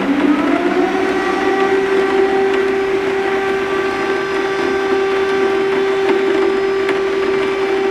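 Electric civil-defence warning siren winding up over about a second into a steady wail and holding it, over the hiss of heavy rain drumming on a window ledge.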